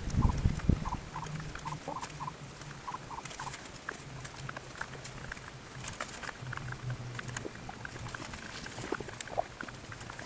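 Chickens making soft, low clucking sounds in short repeated notes, with scattered light clicks and rustling.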